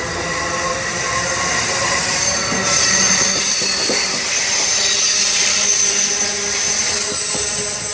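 Amtrak Northeast Regional train's Amfleet passenger coaches rolling past close by, wheels running over the rails. About a third of the way in, a high-pitched squeal of several steady tones sets in and holds.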